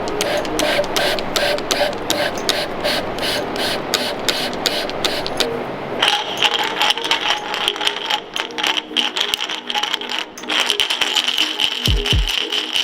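Background music with a fast clicking, ticking beat. From about halfway in, steady synth tones join, and two deep falling bass sweeps come near the end.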